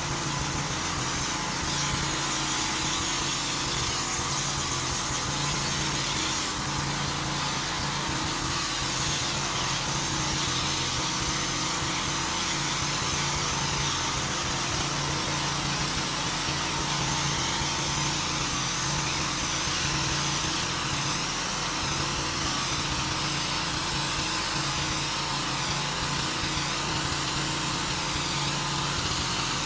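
Pressure washer running steadily, with a continuous hiss of high-pressure water spray cleaning a driveway.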